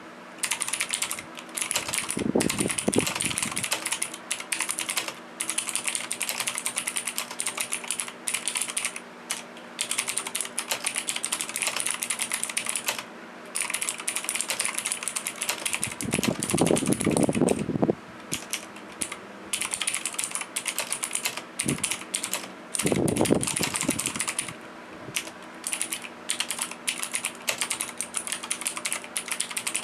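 Continuous fast typing on a mechanical keyboard with clicky blue switches, each keystroke a sharp click. There are a few short pauses, and three stretches have a deeper clatter under the clicks.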